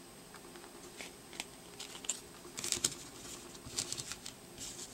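Yu-Gi-Oh trading cards being handled and set down on a playmat: a quiet scatter of light clicks and rustles of card stock, busiest around the middle.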